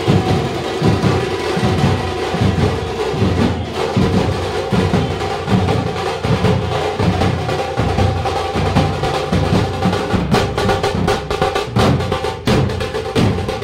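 Dappu frame drums beaten together by a group of drummers in a fast, driving rhythm, loud, over the din of a crowd.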